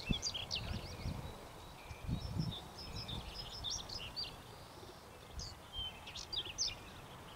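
Small birds chirping and calling, many short high notes scattered throughout, over irregular low rumbles and thumps.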